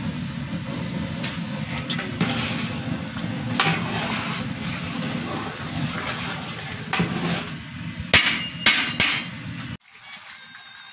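A long metal spoon stirring thick dal in a large metal cooking pot, scraping and knocking against the pot, over a steady low rumble. It ends with three sharp clangs of spoon on pot, and the sound cuts off suddenly just after.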